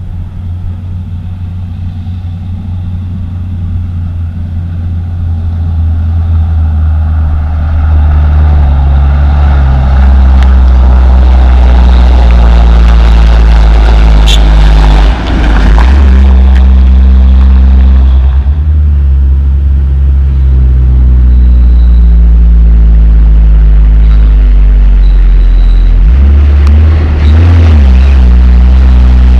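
Heavy Hino dump trucks' diesel engines running as they drive past on a dirt hauling road. The first truck grows louder over the first several seconds and then stays loud, and the engine note steps in pitch a few times as a second truck comes up close near the end.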